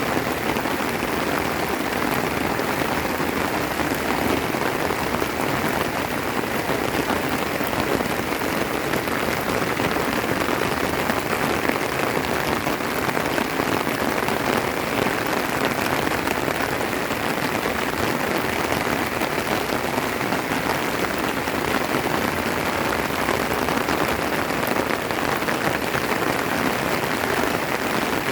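Steady heavy rain falling, a dense even patter of drops on surfaces.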